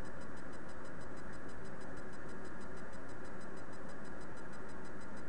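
Steady hiss and low hum of background noise picked up by a webcam microphone, with faint, rapid, evenly spaced ticking at about eight a second.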